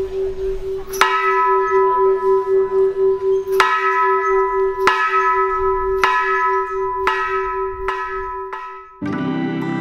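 Large bronze temple bell struck by its clapper as a monk pulls the bell rope: about seven strikes, coming faster toward the end, each ringing on over a steady, pulsing low hum. Near the end the bell cuts off and background music takes over.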